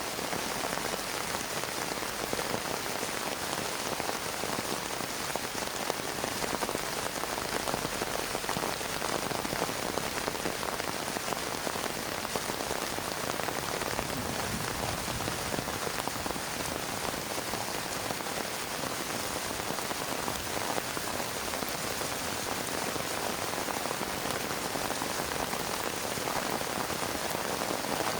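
Heavy rain falling steadily and pattering on a plastic tarp, with no let-up and no thunder.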